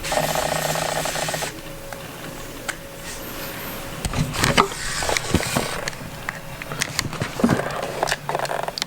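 Small clicks and light taps of tools on the screws and parts of a disassembled iPhone 5, opened by a steady buzz lasting about a second and a half.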